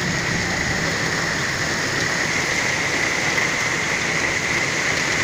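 Torrential rain pouring steadily onto the street and buildings: an even, unbroken hiss of a heavy downpour.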